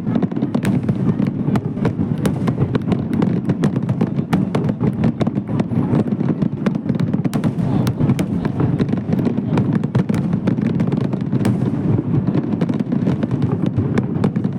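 Fireworks crackling: a dense, continuous run of sharp pops and crackles over a steady low rumble.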